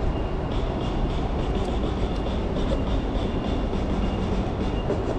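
Steady low rumble and hiss of city street ambience, with a few faint ticks and a thin high tone over it.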